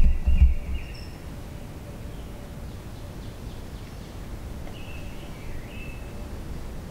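Quiet woodland background with faint songbird calls: short high chirping notes, clearest about five seconds in. A few low thumps in the first second.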